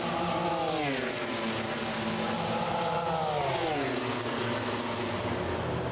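MotoGP race bike engine running at high revs on track. Its pitch falls about a second in, climbs slowly, then falls again near four seconds.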